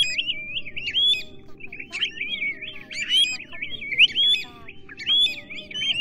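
Pacific golden plovers calling: clear whistled notes that rise and fall, several overlapping, in clusters about once a second. A faint steady hum lies underneath.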